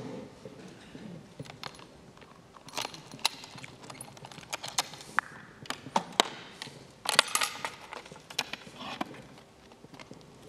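A key working in the lock of a box and the box being opened by hand: a run of sharp clicks, knocks and rattles, thickest about three seconds in and again about seven seconds in.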